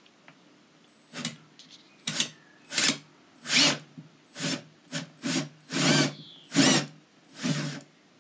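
Cordless drill run in about ten short trigger bursts, boring a pilot hole up through a GRP hatch cover into its new teak deck. The pulsing is how the bit is kept from going further than just piercing the teak, so the hole can be finished from the teak side.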